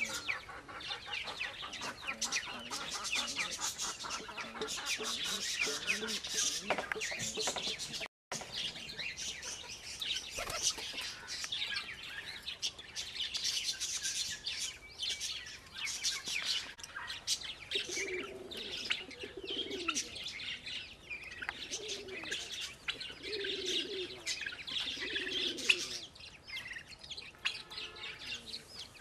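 Birds chirping busily and continuously in rapid high notes. In the second half, pigeons coo five or six times in low, pulsing phrases. The audio cuts out briefly about eight seconds in.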